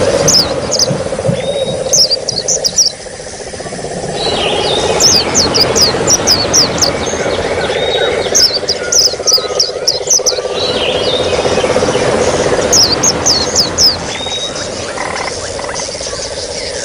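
Small songbirds, white-eyes (pleci), twittering in quick bursts of rapid high chirps, about five bursts. Underneath are a steady trickling-water hiss and a continuous low buzzing trill.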